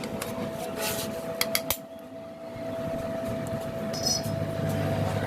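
A steady mechanical hum with one high tone, broken by a few sharp metallic clinks about a second and a half in.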